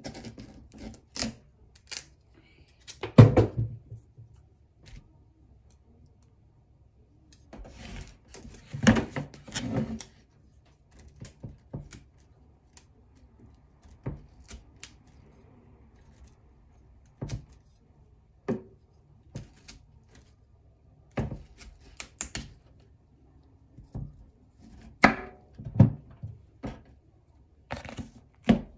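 Chef's knife cutting up a head of broccoli on a wooden cutting board: irregular knocks of the blade on the board and crisp cuts through the stalk, with louder thumps about three seconds in, around nine seconds and near the end.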